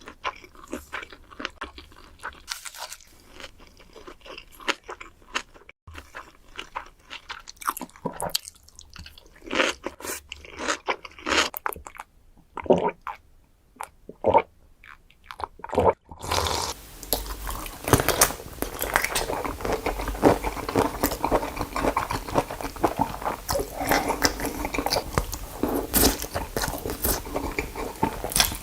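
Close-miked eating sounds of soy-sauce-marinated raw shrimp: many short crunches with wet chewing between them. About 16 seconds in the sound changes abruptly to a denser, louder run of chewing and crunching.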